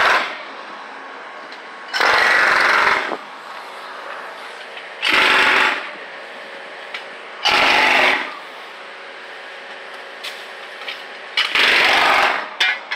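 Pneumatic jackhammer breaking up a concrete sidewalk, hammering in short bursts of about a second, four times with a pause of a few seconds between. A steady machine hum runs underneath between the bursts.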